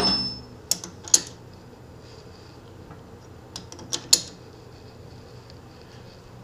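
Sharp metal clicks and clinks of a chuck key working the jaws of a four-jaw lathe chuck as they are gently snugged up. A couple come about a second in and a short cluster around four seconds, over a steady low hum.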